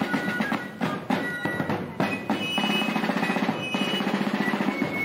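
Colonial-style fife and drum corps playing a march: rapid snare drumming and bass drum strokes under a high piping fife melody.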